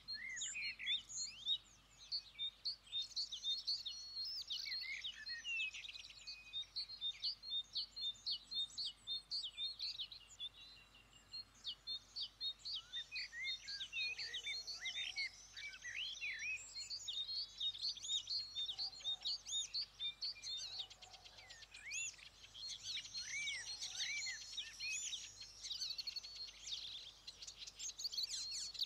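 Birds chirping and singing, many short overlapping calls in a steady chorus.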